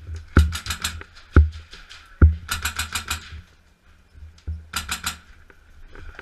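Airsoft rifle firing three short rapid bursts of about ten shots a second: near the start, around the middle and about five seconds in. Single heavy thuds come in between.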